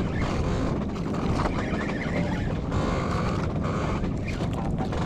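Wind buffeting the microphone in a steady rush out on an outrigger boat at sea.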